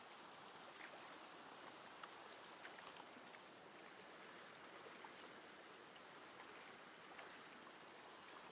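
Near silence: the faint, steady hiss of a small creek's running water, with a few faint ticks scattered through it.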